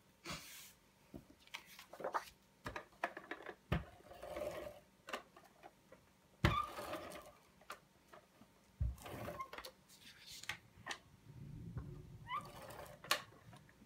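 Paper handling at a craft table: sheets of cardstock rustling and sliding, with scattered light clicks and knocks as a clear plastic storage case is picked up and handled, and a couple of sharper thumps about four and six and a half seconds in.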